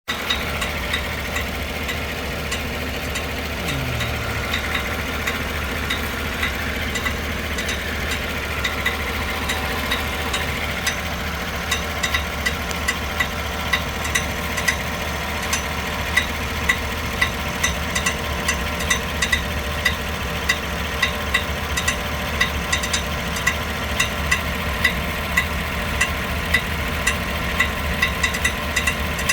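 2015 GMC Yukon V8 idling, with sharp, irregular clicks about once or twice a second that stand out more from about a third of the way in. The uploader takes this noise for the sign of a bad starter.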